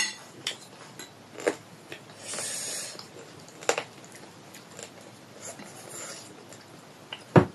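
Close-up eating sounds at a table: a few light clicks of cutlery against a plate, a breathy slurping noise about two seconds in, and a louder knock near the end.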